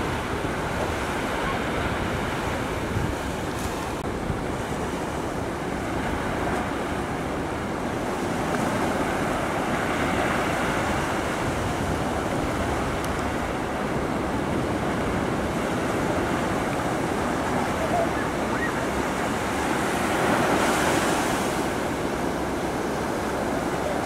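Ocean surf: waves breaking and washing in a steady roar of white water, with wind on the microphone. The wash swells louder about twenty seconds in.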